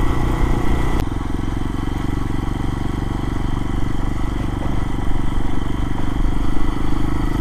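Lifan KPX250's single-cylinder four-stroke 250 cc engine running steadily, with a slight change in its note about a second in.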